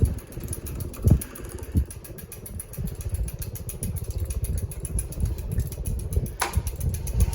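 Hunter Westminster ceiling fan running on high speed, its airflow buffeting the microphone with an uneven low rumble and rapid flutter. A few knocks come near the start, and there is a sharp click about six and a half seconds in.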